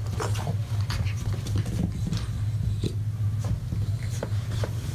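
A French bulldog puppy and an adult bulldog playing together, with many short scuffling clicks over a steady low hum.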